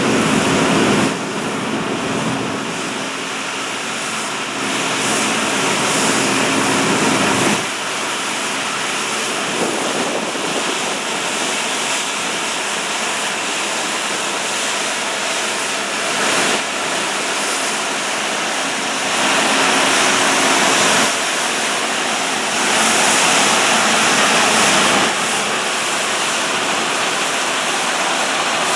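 New Holland combine harvesters working: a loud, steady rush of engine and threshing machinery noise that swells and eases every few seconds, with a low hum through the first several seconds.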